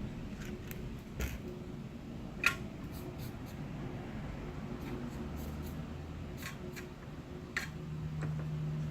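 Faint steady hum of bench equipment, with a few small sharp clicks of hand tools being picked up and set down on the workbench; the loudest click comes about two and a half seconds in.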